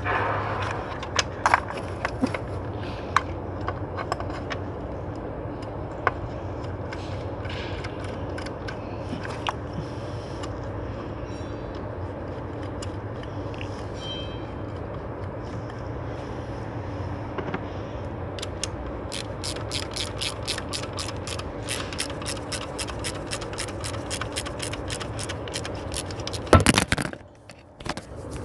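Hand tools on metal during fuel-injector refitting: scattered clicks and knocks, then from about two-thirds of the way in a fast, even run of ratchet-wrench clicks as the injector hold-down bolt is tightened, ending in a loud clatter.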